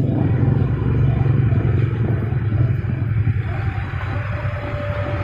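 Excavator's diesel engine running with a steady low drone that eases slightly toward the end, a faint steady whine joining about four seconds in.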